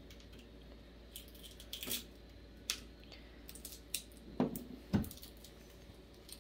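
Faint, scattered clicks and knocks of cooked chestnuts and their shells being handled on a table, with a sharper knock about five seconds in.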